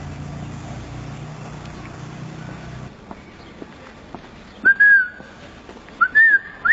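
Short whistled notes, each sliding up and then holding briefly: two in the second half, with a third starting right at the end. A steady low hum stops about three seconds in, before the whistles.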